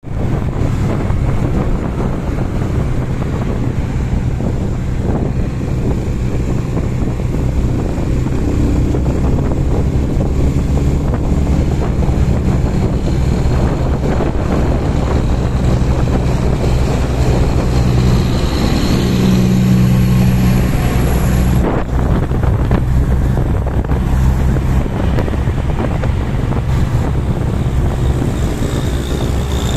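Motorcycle engine running at road speed, with wind buffeting the microphone. The engine note swells a little past the middle and briefly breaks about two-thirds through.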